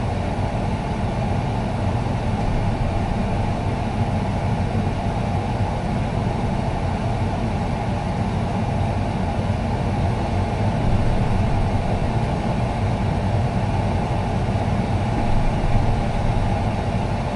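Tractor engine running steadily, with a constant drone and no changes in speed, heard from inside the cab.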